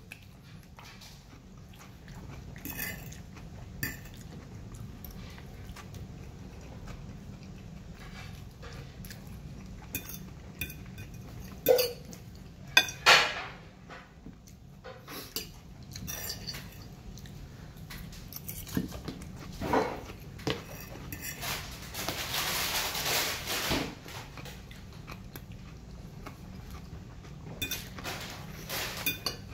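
Metal fork scraping and clinking against a plate while the food is eaten, heard as scattered separate clicks and scrapes with chewing between them.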